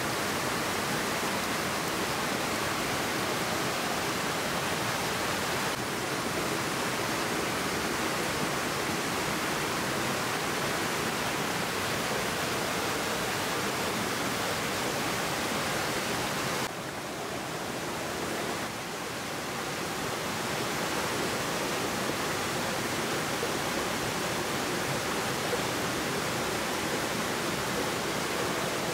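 Forest stream rushing over rocks: a steady rush of water that turns a little softer for a couple of seconds just past the middle.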